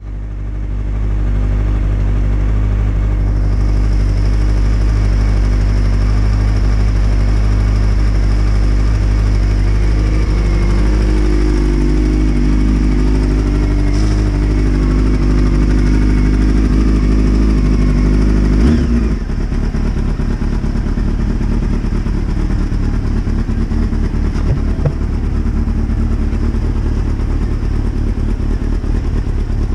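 Honda CBR600 sport bike's inline-four engine idling steadily. About two-thirds of the way through the sound changes abruptly and turns rougher and choppier as the bike moves off at low speed.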